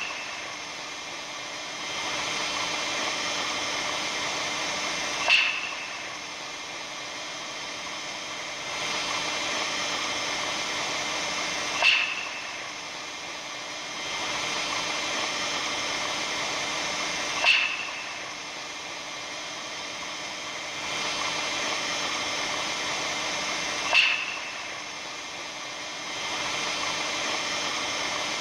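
Ambient recording presented as the sound of the aurora borealis: a steady hiss with faint whines, broken by a short sharp crackle four times, about every six seconds.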